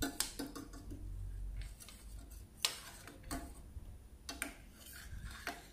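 Steel ladle clinking and scraping against the sides of a stainless steel pan while stirring milk as it thickens into khoa, an irregular string of light metallic ticks with a low hum underneath.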